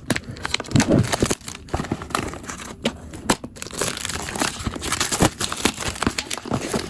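Plastic packaging crinkling and tearing as a case is unwrapped, a dense run of irregular crackles and small clicks.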